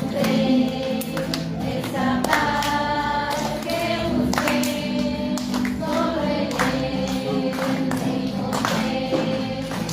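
A group of voices singing a song together, with a steady beat of sharp hits.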